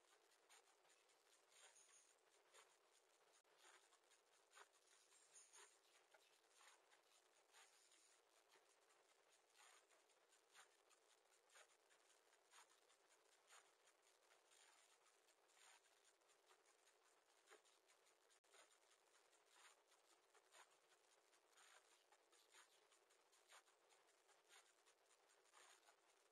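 Near silence inside a small wooden nest box, with faint scattered scratchy ticks. A faint high double note recurs a few times in the first several seconds.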